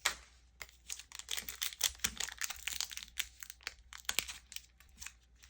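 Foil Pokémon TCG booster pack wrapper crinkling as it is handled and opened, a dense run of sharp crackles.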